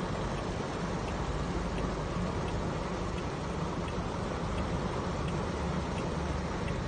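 Heavy rain pouring on a car's roof and windshield, heard from inside the car as a steady hiss, with a low hum underneath.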